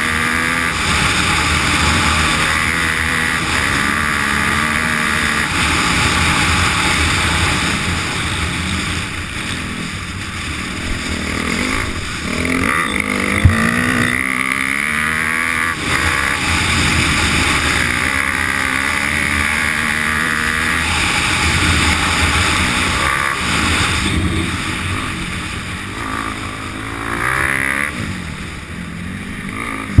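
Off-road motorcycle engine running under way, its pitch rising and falling repeatedly with the throttle, heard close from the bike itself. A single sharp knock stands out about thirteen seconds in.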